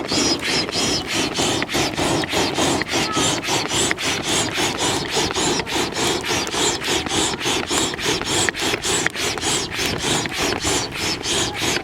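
Air-mattress pump worked fast and hard, about four strokes a second, each stroke a rasping whoosh of air forced into smouldering charcoal to bring it up to a blaze.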